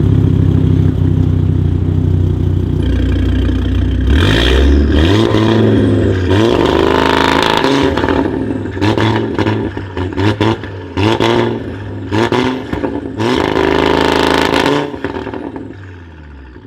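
Audi RS3 8P's turbocharged five-cylinder engine through a straight-pipe exhaust, very loud. It holds a steady note at first, then is revved again and again, the pitch rising and falling with sharp crackles between the revs, before the sound falls away near the end.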